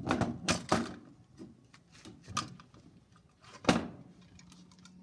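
Several knocks and clatters of objects being handled and set down on a wooden deck. There are two in the first second and the loudest comes nearly four seconds in. Faint pops from a wood fire crackling in a metal fire pit sound between them.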